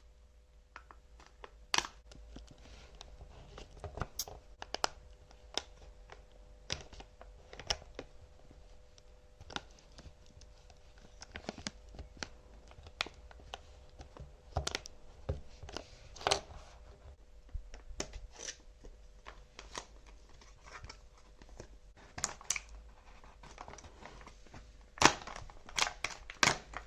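Small packaging being handled and torn open by hand: scattered crinkles, clicks and tearing, coming thicker and louder near the end.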